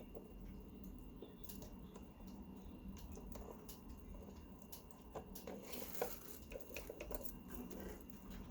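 Faint scattered clicks and light handling noises of needle-nose pliers pushing a wire connector onto a terminal inside a coffee maker. The clicks get busier about halfway through, with one sharper click about six seconds in.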